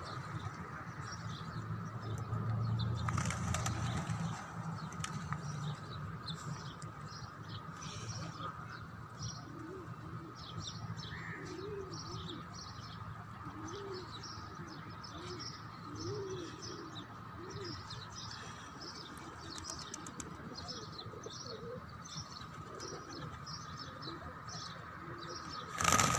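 A flock of pigeons and doves: many short high chirps throughout, a flutter of wings about three seconds in, and a run of low coos in the middle, about one a second.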